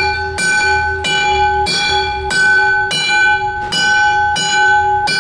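Hammer striking a piece of steel in an even rhythm, about one blow every 0.7 seconds, each blow leaving a bell-like metallic ring at the same pitch.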